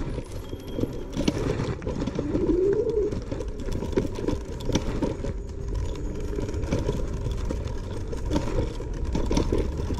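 Langfeite L8S dual-motor electric scooter riding over rough ground: the motors give a deep hum that rises in pitch about two seconds in, over frequent rattles and knocks from the bumps.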